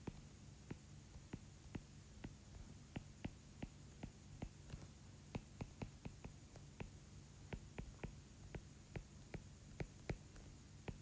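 Stylus tip tapping and clicking on a tablet screen while handwriting, faint irregular clicks several a second over a low steady hum.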